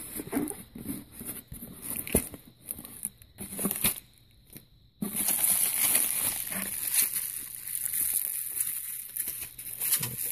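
Cardboard mailer box handled with scattered light knocks and rustles, then, from about five seconds in, continuous crinkling of bubble wrap being pulled out of the box.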